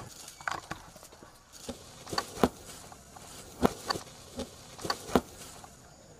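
Footsteps and stamps on hard-packed dirt: about nine sharp, irregular knocks as someone steps quickly back and forth.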